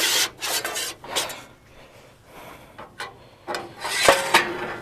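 Rubbing and scraping with light metallic clinks as net wrap is worked into the duck bill of a New Holland BR560 round baler's net wrap mechanism. A sharp click comes about three seconds in, then a louder metallic clank with a brief ring about four seconds in.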